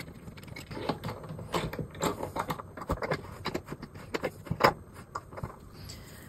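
Metal microphone boom arm and its desk clamp being handled and fitted: irregular clicks, knocks and light rattles, the sharpest about two-thirds of the way through.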